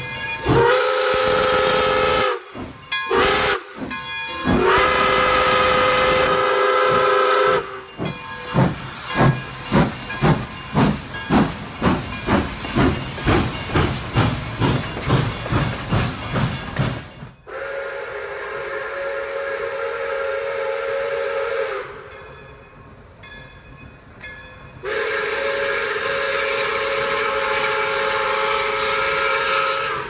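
A steam locomotive whistle sounds several blasts. The engine then chuffs with steam hissing, the beats speeding up from about one and a half to about two and a half a second. The whistle follows again, fainter at first and then in one long blast near the end.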